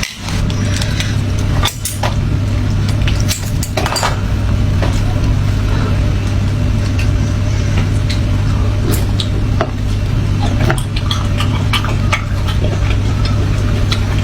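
Clinks and taps of utensils against dishes, scattered short clicks over a steady low hum.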